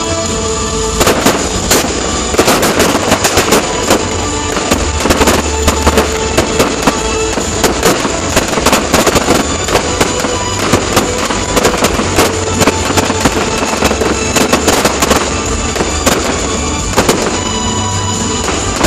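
Fireworks display going off: a rapid, dense run of sharp bangs and crackles from aerial shells that starts about a second in and thins out near the end, over background music.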